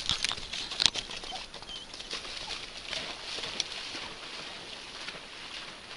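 Dry marsh grass and brush rustling and snapping, with a sharp crack about a second in, then quieter scattered ticks.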